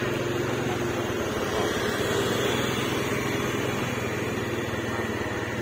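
An engine running steadily: a low, even hum with a fast rapid pulse and no change in speed.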